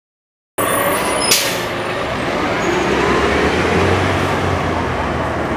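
City bus driving past close by in street traffic, its low engine-and-road hum strongest in the middle, with a short hiss about a second in. The sound comes in suddenly about half a second in.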